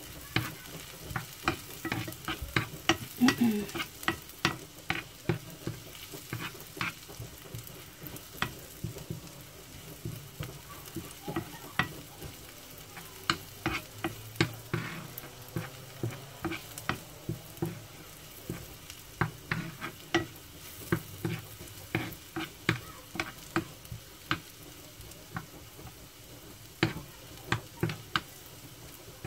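Garlic and ginger sizzling in butter in a frying pan, being browned, while a utensil stirring them scrapes and taps sharply against the pan, often several times a second.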